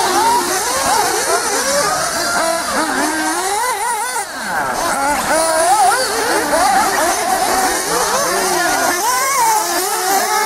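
RC truggy running hard, its motor's high pitch rising and falling constantly with the throttle over a steady hiss, with a brief drop about four seconds in.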